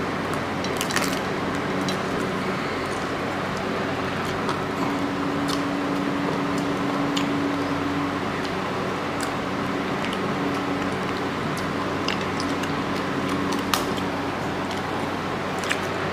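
Eating sounds from hands mixing rice and pulling at prawns on plates, and chewing, heard as scattered small clicks and squishes over a steady mechanical hum.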